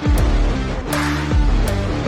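Electronic background music with a heavy beat: pounding bass drops that fall in pitch about twice a second, with sharp percussion hits over sustained synth notes.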